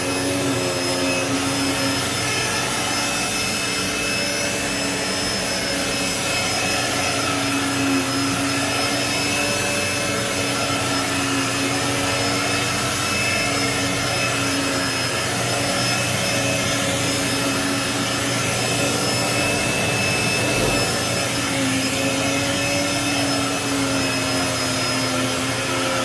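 Vacuum cleaner running steadily on carpet: a continuous motor whine with a low tone that wavers slightly in pitch.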